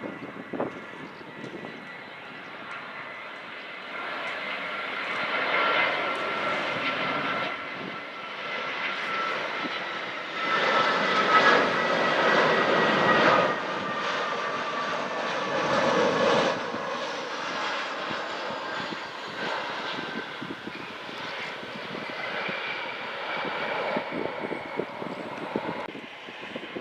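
Airliner engines passing at an airport: a rushing engine noise with a whine that slowly falls in pitch. It grows to its loudest about halfway through, then eases off.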